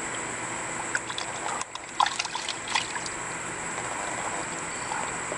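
White ducks splashing and dabbling in a shallow pool of water as they go after live menhaden, with a cluster of splashes between about one and three seconds in, the sharpest about two seconds in. A steady high hiss runs underneath.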